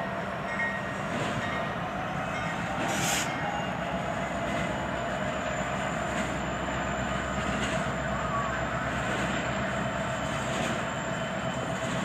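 Freight train rolling past, its hopper cars giving a steady rumble with occasional clacks and a faint steady whine.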